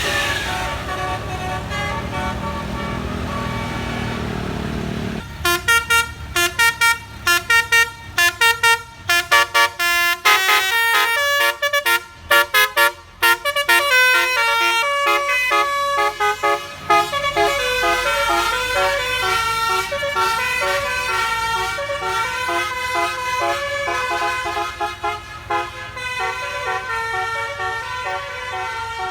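A bus's 'telolet basuri' multi-trumpet musical air horn playing a fast tune of short, quickly changing notes. It starts about five seconds in, after a few seconds of vehicle engine noise, and the notes run together more smoothly in the second half.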